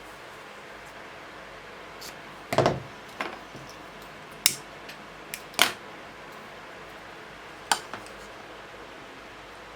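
A handful of separate light clicks and knocks from small craft tools and materials being picked up and set down on a work surface, about five in all, over a faint steady hiss.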